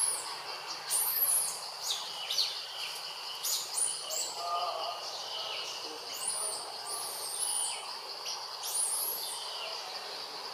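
Birds calling in repeated very high-pitched chirps that rise and fall, one every second or two, over a steady high insect drone.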